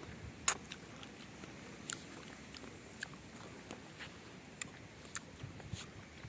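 Quiet eating sounds of someone eating ice cream: a few scattered short clicks and mouth sounds, the loudest click about half a second in.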